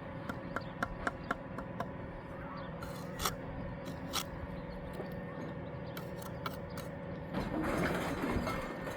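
Bricklaying work: a series of light clicks and taps of a trowel and bricks being set in mortar, then a rough scrape of the trowel through mortar for about a second near the end.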